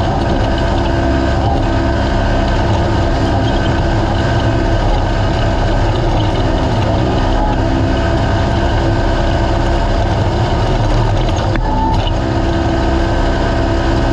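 Naturally aspirated race UTV engine running steadily and loud, its pitch dipping briefly about halfway through and then recovering.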